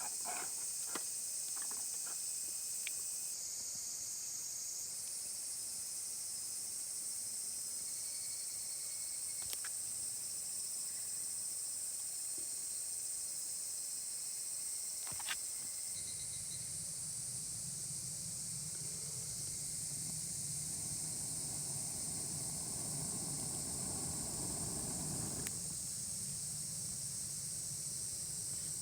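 A steady, high-pitched chorus of summer insects droning on without a break, with a few faint clicks. A low, steady rumble joins about halfway through.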